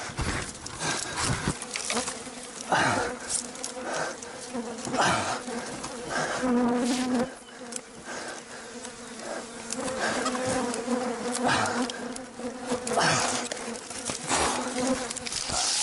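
Bees buzzing in a steady hum close around the microphone as they swarm a climber who has disturbed their nest in the palm crown. Over the hum come repeated scraping and rustling strokes as a dull knife hacks at the coconut bunch and the palm fronds.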